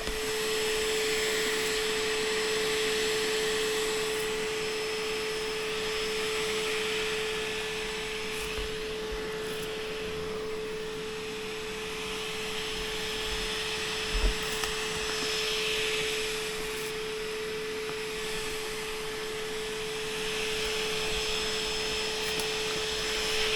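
A motor hums steadily at one even pitch, with a rushing airflow noise that swells and fades every few seconds.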